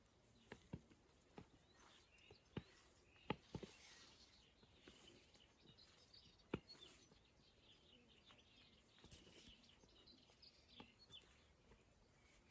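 Faint birdsong, a scatter of small chirps and calls from wild garden birds, busiest in the second half. Several sharp clicks punctuate the first half, the loudest about three seconds in and again about six and a half seconds in.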